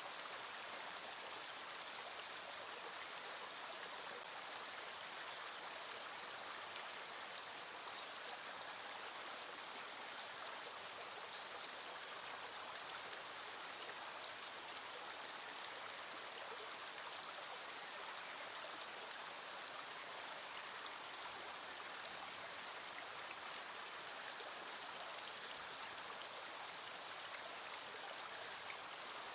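A small stream flowing steadily, with rain falling on top of the water sound.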